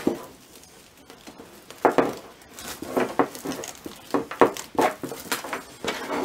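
Handling noise of a three-strand polysteel rope being spliced by hand: the stiff strands rustle and scrape as they are untwisted, tucked and pulled through, with irregular small knocks. The noises begin about two seconds in.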